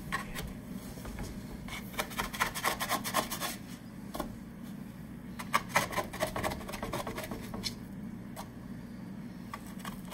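A spatula scraping under baked falafel patties on a metal baking sheet and flipping them, in two main runs of quick scraping strokes about two and six seconds in, over a low steady hum.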